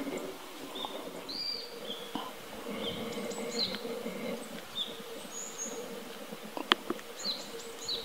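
Small songbirds giving short, high chirping call notes, scattered and overlapping, over a faint steady hum. A single sharp click stands out about two-thirds of the way through.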